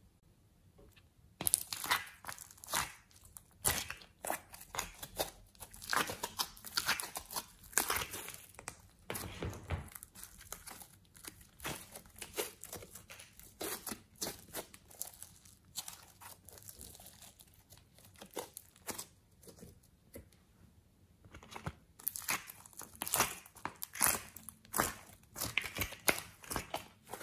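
Hands squeezing, stretching and pulling apart soft slime and clay, making irregular sticky crackles and tearing pops. The crackling goes quieter around the middle and gets busier again near the end.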